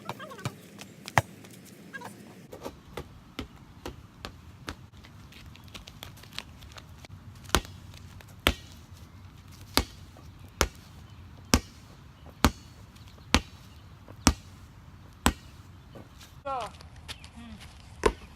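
A series of sharp knocks or taps, scattered at first and then settling into about one a second through the middle of the stretch.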